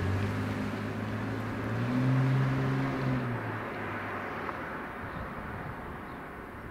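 An unseen motor vehicle's engine humming, rising in pitch and loudness about two seconds in, then fading away by the middle, with road noise dying off after it.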